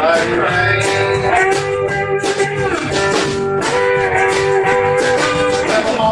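Live country band playing an instrumental passage: a fiddle holds long bowed notes over strummed acoustic guitar, electric guitars, bass and a steady drum beat.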